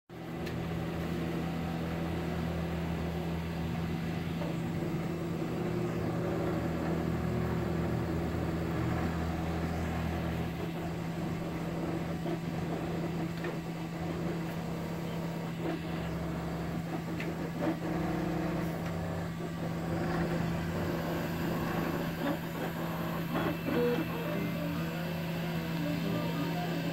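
Dremel 3D20 Idea Builder 3D printer running, with a steady fan hum under the whirr of its stepper motors, which change pitch in short steps as the print head moves. The stepping tones become busier in the last several seconds.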